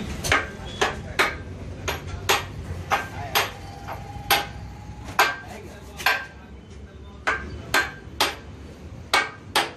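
Hand hammer striking the steel parts of a hydraulic breaker during a rebuild: about fifteen sharp metallic blows at an uneven pace, some leaving a short ring.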